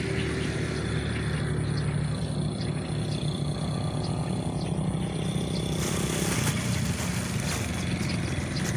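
A small engine running steadily and unseen, with a hissing noise rising about six seconds in.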